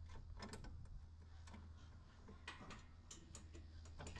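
Faint, scattered light clicks and taps of a metal attic shelf being lifted and fitted into its mounts on the roll bar, over a steady low hum.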